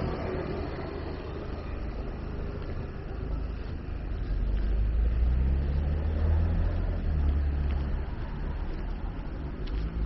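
City street traffic: a motor vehicle's engine running close by over the general hum of the street, growing louder about four seconds in and easing off again near eight seconds.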